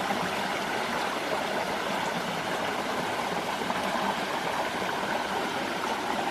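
A stream running: a steady, even rush of flowing water.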